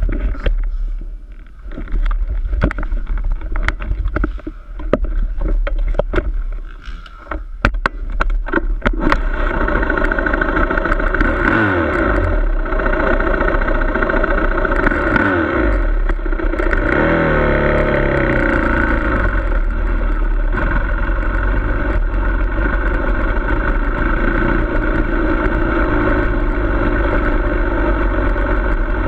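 Dirt bike engine. A run of sharp knocks and clatter comes first, then the engine runs steadily from about nine seconds in. Its revs rise and fall twice before it settles into a steady run.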